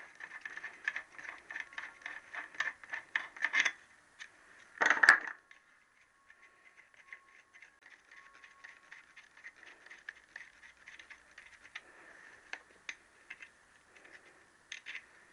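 Light metallic clicking and rattling as parts are handled on a bare aluminium motorcycle engine crankcase: a quick run of clicks, one louder knock about five seconds in, then faint scattered ticks.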